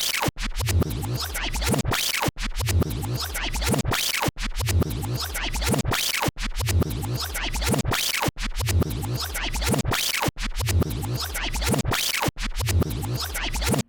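Background music with a heavy beat and scratching sounds, broken by brief silent gaps about every two seconds; it starts abruptly and cuts off at the end.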